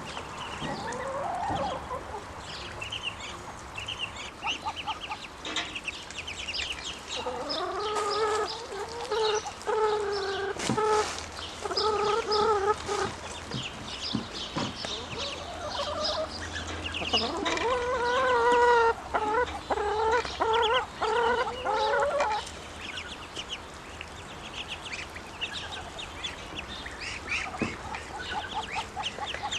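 Young ducklings peeping: many short, high peeps all through, with two stretches of longer, lower, louder calls, one about a quarter of the way in and one in the second half.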